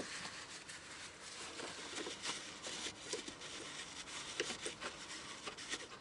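Hands cleaning and handling parts around the fuel tank's pump opening: faint rubbing and scuffing with a few light clicks.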